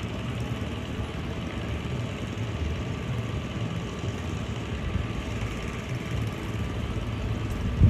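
Distant Airbus A330 jet engines running at low thrust as the airliner rolls along the runway after landing: a steady low rumble.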